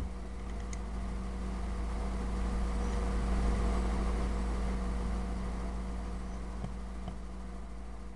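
Steady low hum, with a swell of vehicle noise that rises and fades over several seconds in the middle, as a vehicle passes by. A sharp click right at the start, and a couple of faint clicks near the end.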